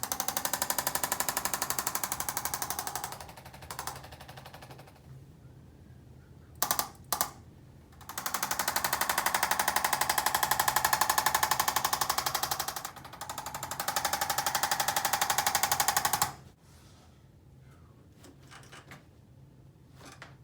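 A small handheld motorised device buzzing with a rapid, even pulse: on for about three seconds and fading, two short bursts about seven seconds in, then a long run of about eight seconds with a brief dip, stopping suddenly near the end.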